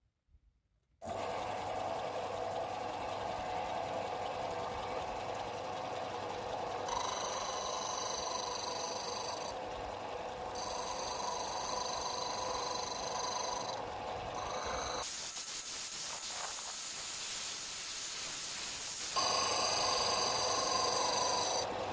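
Combination belt-and-disc sander running, starting about a second in, as a plywood disc is pressed against its spinning abrasive disc. The scraping of wood being sanded comes and goes in stretches through the middle, with two short breaks, and returns near the end.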